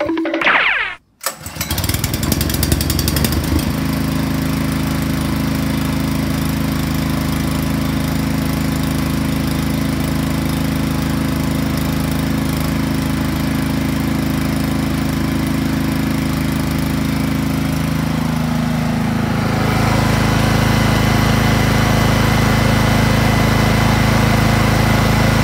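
Small single-cylinder four-stroke generator engine (Krisbow KBP15, 1500 W) pull-started: a brief rising whir, then it catches about a second in and runs steadily. Its note dips slightly about 18 seconds in, and it sounds louder from about 20 seconds in.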